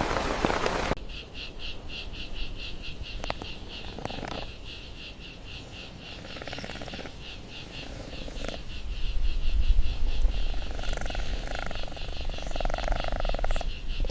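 Outdoor nature ambience: a fast, steady chirping repeating several times a second, after a short burst of noise that cuts off about a second in.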